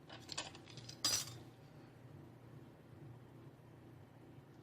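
Small hard tools set down and picked up on a work table: a few light clicks, then one sharp clack about a second in.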